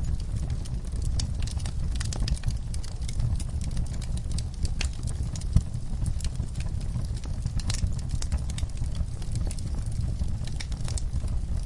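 Wood fire burning, a steady low rumble of flames with frequent irregular crackles and snaps of burning wood, and one louder pop about halfway through.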